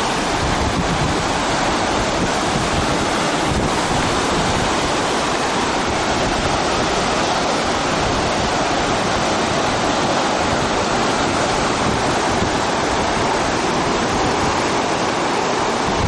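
Whitewater rapids rushing, a loud, steady, even noise of churning river water with no pauses or breaks.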